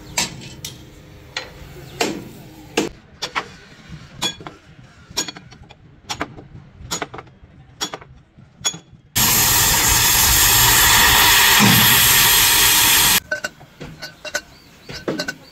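Irregular metal clanks and knocks of tools and a pry bar on a steel truck chassis frame. About nine seconds in, a loud steady hiss of rushing air cuts in, lasts about four seconds and stops abruptly, and then the clanking resumes.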